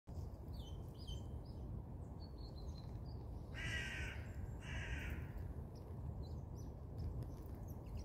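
A crow caws twice, two harsh calls about a second apart near the middle. Small birds give short high chirps in the first few seconds, over a steady low background rumble.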